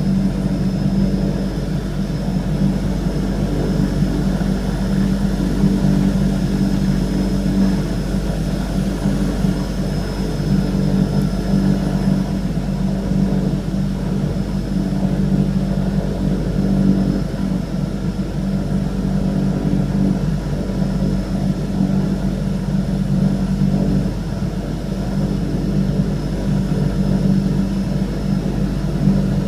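Twin PT6A turboprop engines of a de Havilland Canada DHC-6-300 Twin Otter, heard from inside the cabin while the aircraft taxis: a steady low propeller drone with a thin high turbine whine above it.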